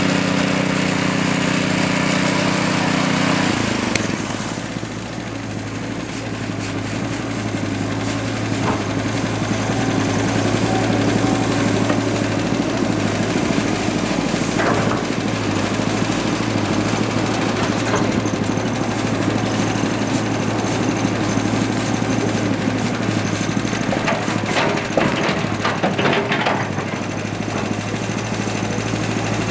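Small petrol engines of concrete power trowels running steadily. A deeper engine note drops away about three and a half seconds in, and a few short clacks come near the end.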